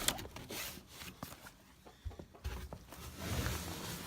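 A few knocks and low thumps of someone moving about at a chicken coop, with faint sounds from the backyard hens.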